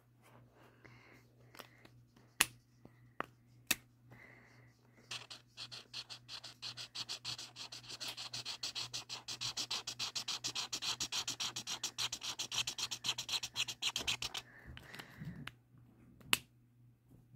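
Marker scribbling fast on paper, colouring in with rapid back-and-forth strokes, several a second, for about ten seconds before stopping abruptly. A few sharp clicks come before it and one more near the end.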